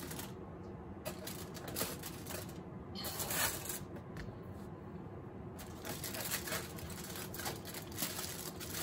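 Aluminium foil crinkling and crackling as hands open out and press foil pouches, a busy run of crackles with a louder burst about three seconds in.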